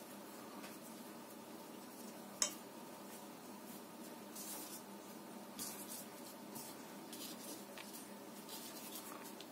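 Faint soft rubbing and patting of floury hands pinching shut and shaping yeast-dough pies filled with mashed potato, with one small click about two and a half seconds in.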